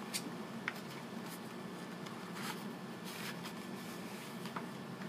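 Cardboard packaging of an SSD retail box being handled and opened: a few soft rustles and light taps scattered through, over a steady low hum.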